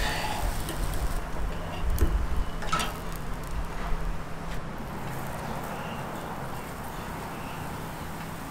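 Street-stall background noise: a low rumble that eases off after about four seconds over a faint steady hum, with a couple of light clicks.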